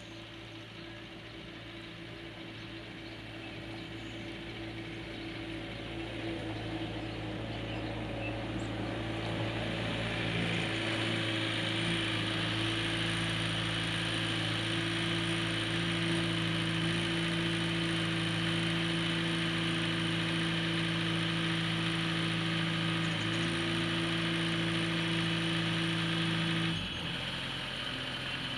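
Skid-steer loader's engine running as the machine drives closer, growing louder over the first ten seconds or so and then holding steady. Near the end the engine drops suddenly to a lower idle.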